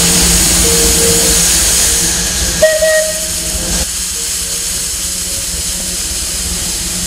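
Steam locomotive's open cylinder drain cock hissing hard, the hiss easing off about two and a half seconds in. A short steady whistle-like tone sounds near the middle over a steady low hum.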